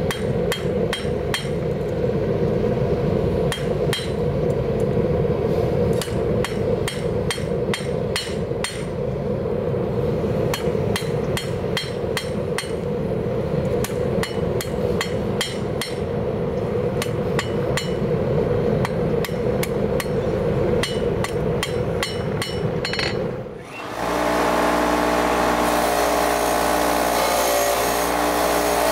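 Hand hammer striking a red-hot railroad spike on a steel anvil, about two blows a second with short pauses, over a steady low rushing noise. About 24 seconds in this cuts off and a bench grinder hums steadily as the forged spike is ground against its wheel.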